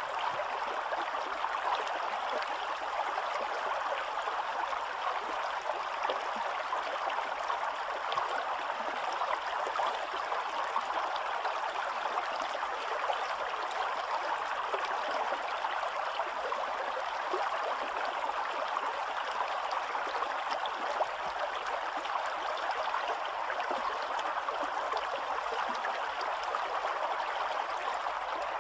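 Spring-fed stream rushing steadily, an even, unbroken sound of running water.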